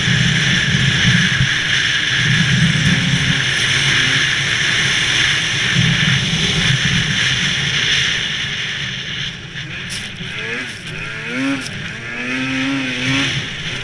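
Snowmobile running fast along a trail: a loud, steady engine drone under a hiss of track and wind. About nine seconds in it eases off and gets quieter, the revs rising and falling.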